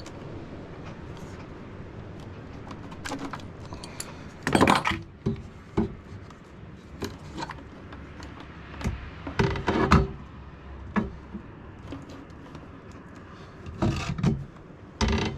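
Irregular clicks, knocks and rattles of a plastic car-stereo head unit and its wiring being pulled out of the wall panel and handled. The loudest clatters come at about 4 to 5 seconds in and again around 10 seconds.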